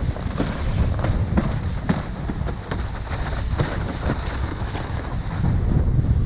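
Wind buffeting the microphone over a loud low rush, broken by frequent irregular knocks and slaps as a windsurf board runs over choppy water.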